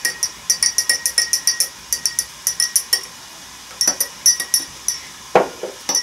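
Teaspoon stirring in a small Turkish tea glass: rapid runs of glassy clinks, pausing about three seconds in and starting again, then a heavier knock about five seconds in.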